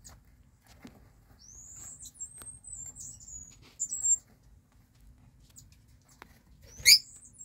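Mongolian gerbils squeaking: a string of thin, high-pitched squeaks over a couple of seconds, then one louder squeak that falls in pitch near the end, with faint clicks of small feet on the bedding.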